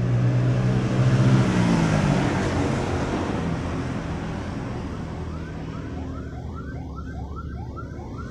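A motor vehicle passes close by, its engine note dropping in pitch as it goes, with tyre noise. About five seconds in, an ambulance siren starts yelping in fast rising sweeps, about three a second.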